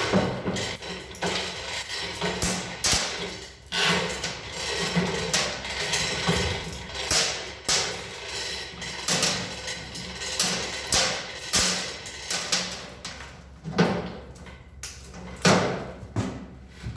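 Irregular metal clanks and knocks, several a second at times, over a steady low machine hum in a workshop.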